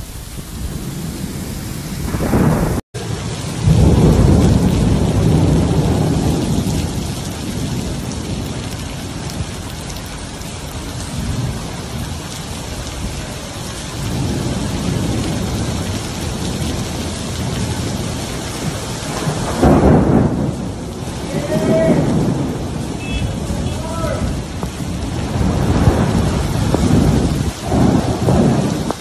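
Heavy rainstorm: a downpour pouring steadily onto the road and cars, with loud low rumbles swelling about four seconds in, again around twenty seconds and near the end. A brief dropout about three seconds in.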